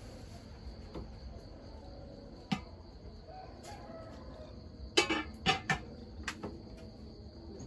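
Chickens clucking: a few short calls, most of them bunched together just past the middle, over a faint steady insect hum.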